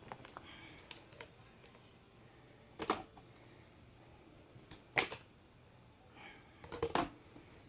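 Hard plastic parts of a vacuum cleaner knocking and clicking as the handle is handled and fitted onto the back panel. Sharp knocks come about three seconds in, again about two seconds later, and twice close together near the end, with light ticks between.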